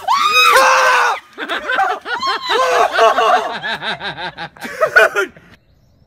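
A loud pitched cry lasting about a second, then several seconds of hard human laughter in quick repeated bursts, which stops shortly before the end.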